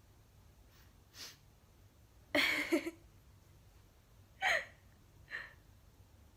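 A woman's short breathy vocal sounds, gasps or breaths without words, four times, the loudest about two and a half seconds in.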